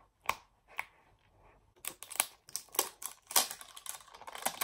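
Fingers handling a plastic Poopsie Slime Surprise container: a couple of separate light clicks in the first second, then a quicker run of small taps, clicks and rustles from about two seconds in.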